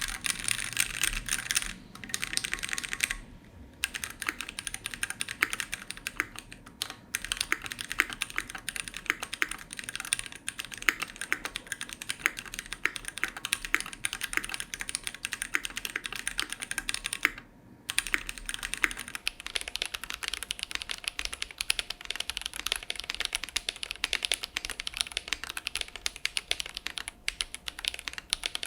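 Typing test on a Keychron Q1 gasket-mount aluminium mechanical keyboard with Gateron Phantom Brown tactile switches and stock keycaps: fast, continuous key clacking with a few short pauses.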